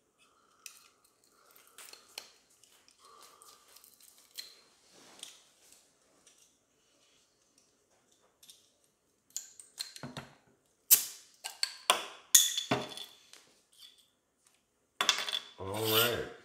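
Foil rustling as it is picked off the top of a small glass beer bottle, then sharp metallic clicks about ten seconds in as a bottle opener prys off the crown cap and the cap is set down on the table.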